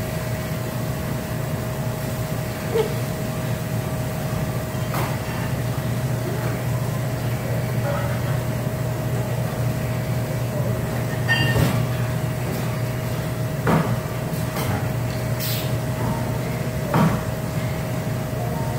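Steady low machine hum with a constant high whine, broken by a few short knocks of a knife on a cutting board as steak is trimmed.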